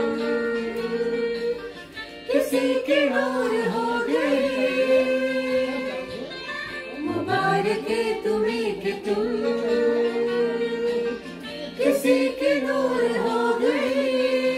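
A young woman singing a wordless melody into a handheld microphone, in three long phrases of held, gliding notes with short breaks between them.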